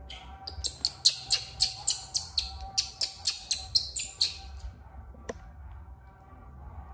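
A rapid series of about sixteen short, high-pitched chirps, about four a second, that stops about four and a half seconds in, followed by a single sharp click.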